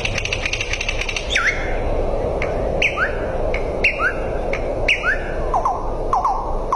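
A bird calling with short, sharp chirps about once a second, each sweeping quickly in pitch, then a few lower doubled notes near the end. A buzzy rattle sounds during the first second, over a steady background hiss.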